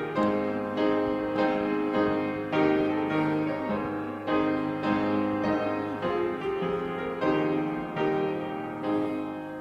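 Piano playing a hymn introduction in struck chords, a new chord about every three-quarters of a second, dying away near the end.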